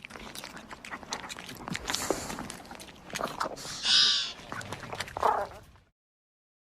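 Disney's velociraptor creature sound effect: a run of clicks and rasping growls, then a loud shrill screech about four seconds in and a shorter cry just after five, cutting off suddenly near the end.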